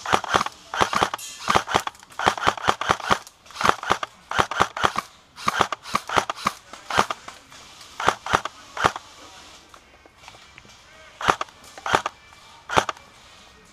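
Airsoft guns firing: sharp shots in rapid clusters, with a lull about ten seconds in before a few more single shots.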